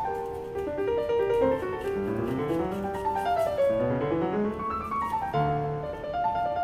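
Background piano music, a flowing melody with running scales that rise and fall.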